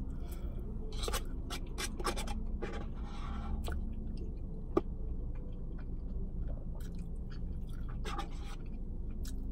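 A person eating close to the microphone: chewing with scattered scrapes and rustles over a steady low rumble, and one sharp click about halfway through.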